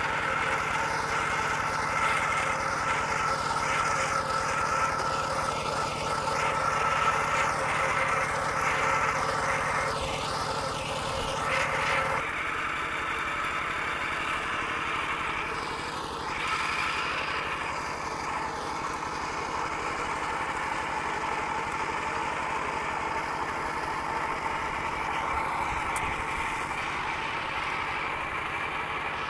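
Kubota RT120 single-cylinder diesel engine of a two-wheel walking tractor running steadily as its cage wheels work through flooded paddy mud. About twelve seconds in the sound changes abruptly, with less of the low throb.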